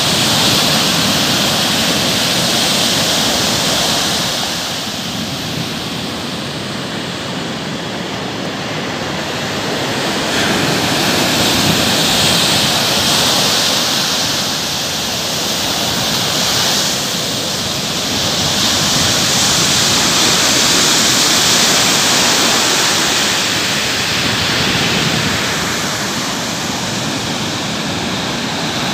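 Ocean surf breaking and washing up a sandy beach: a steady rushing that swells and eases as the waves come in.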